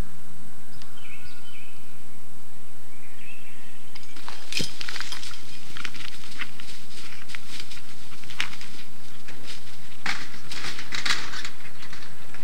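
A sudden thump about four and a half seconds in, then a long stretch of irregular rustling, scuffling and crackling: a remote-triggered drop net falling over a dog, and the dog thrashing under the netting.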